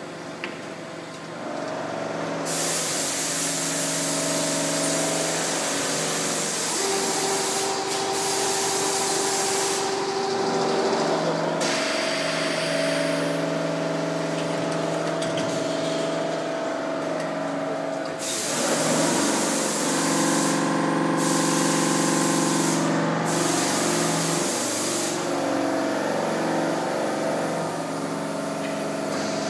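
Multi-head ultrasonic punching machine working on a plastic car bumper. A loud hiss starts and stops abruptly several times over steady tones that shift in pitch.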